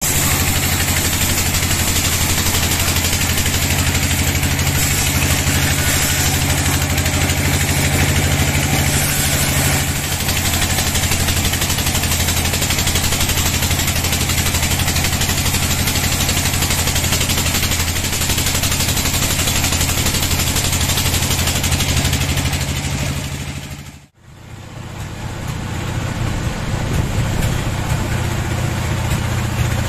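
Band sawmill cutting a teak log: the mill's drive runs steadily under the noise of the blade sawing through the wood. About 24 s in the sound dips away briefly and returns as the mill running without a cut, a lower, steadier drone.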